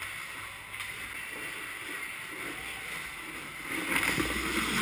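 Ice hockey skate blades and goalie pads scraping on the ice, a steady hiss with a louder, longer scrape about four seconds in as the goalie slides in the crease and sprays up ice.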